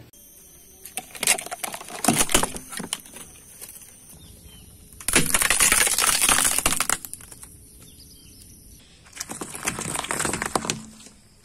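A car tyre rolling slowly over small objects on asphalt and crushing them in turn. Sharp plastic cracks come about a second in. A longer, loud crunch follows in the middle as a cardboard tube is flattened, and crackling near the end as lychees burst under the tread.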